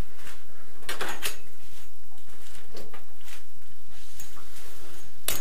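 A few light knocks and clicks of plastic water pipes and fittings being handled, with a sharper knock near the end.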